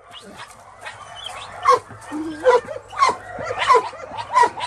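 Dogs barking and yelping, a run of about five short barks spaced under a second apart, beginning more than a second in.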